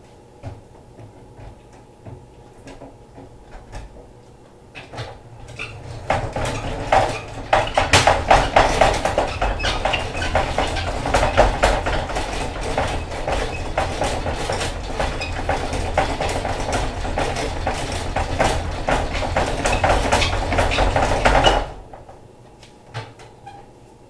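Metal honey extractor spinning frames of honeycomb: a dense metallic rattle with a low rumble under it. It builds up from about six seconds in and stops suddenly near the end.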